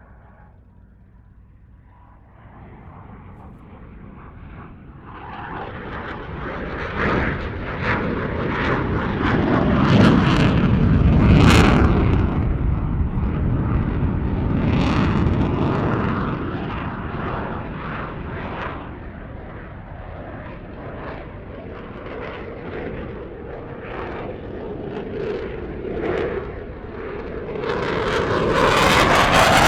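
Aircraft flying an air-show display: engine noise builds from faint over the first few seconds, peaks loud about ten seconds in as it passes close, eases off, then swells strongly again near the end as it comes back around.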